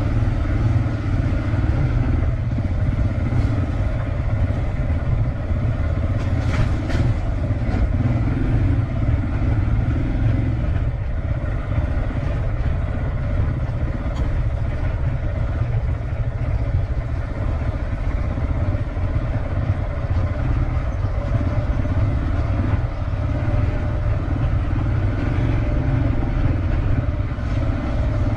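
Motorcycle engine running steadily under way, a constant low drone with no marked revving.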